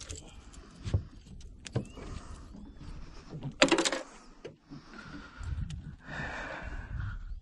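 Handling noise as a caught peacock bass is unhooked on a boat deck: scattered clicks and knocks, with a short loud rasp about halfway through.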